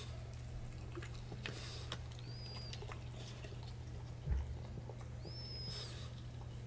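French bulldog mouthing and chewing a raw sardine on rocks: small scattered clicks of teeth and stones, with one soft thump a little past halfway. A thin high whistle-like call, rising, holding, then falling, repeats about every three seconds over a low steady hum.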